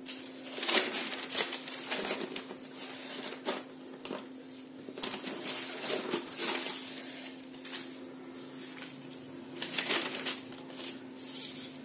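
A hand rubbing and spreading a heap of ground roasted chana dal and powdered sugar over newspaper: irregular scratchy rustles of powder and paper, some louder than others, over a faint steady hum.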